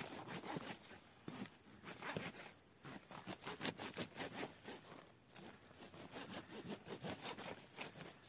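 A dry desert shrub being cut out at its base with a hand tool: quick, irregular rasping scrapes mixed with the crackle of dry, woody twigs, busiest in the middle.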